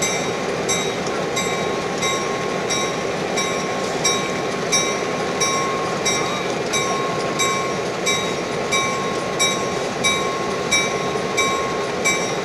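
Diesel passenger locomotive's bell ringing steadily, a strike about every 0.7 seconds, over the steady running of the train.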